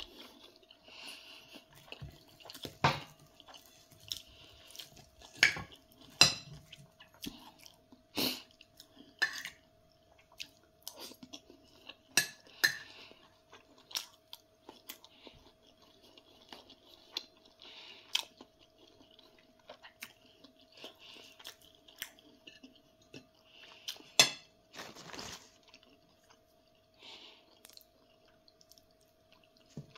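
A person eating with a metal fork and spoon: steady close-up chewing, with sharp clinks of cutlery against the plate every few seconds.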